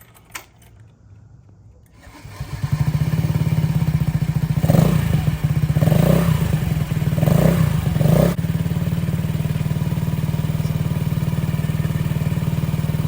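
Honda Ruckus scooter engine with a Beams R-Evo titanium exhaust starting up about two seconds in on its first start. It takes four short throttle blips, then settles into a steady idle. The exhaust still has its silencer insert fitted, and it sounds super quiet.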